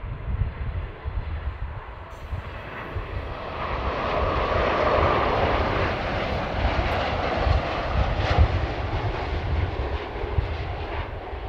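Boeing 747-8 freighter on final approach, its four GEnx-2B turbofans running at approach power. The jet noise swells to a peak about four to six seconds in as the plane comes past, then eases a little.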